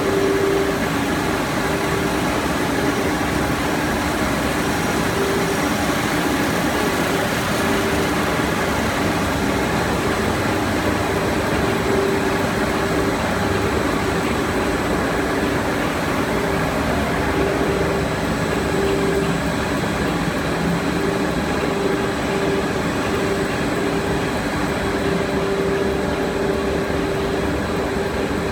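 HDPE raffia film extrusion line running steadily: a continuous mechanical hum and hiss with a mid-pitched whine that swells and fades.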